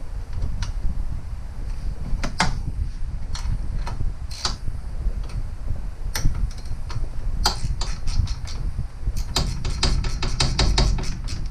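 Small metal clicks and taps of a combination wrench working a 10 mm screw that holds a headlight ground wire, a few single clicks spread apart, then a quick run of clicks near the end. A steady low rumble sits underneath.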